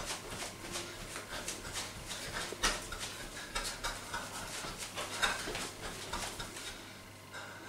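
A person shaking his whole body in quick bounces from the legs: rapid rhythmic rustling of loose clothing with quick panting breaths, several beats a second, dying away near the end.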